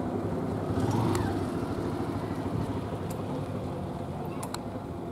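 A steady low motor drone, with a brief voice about a second in.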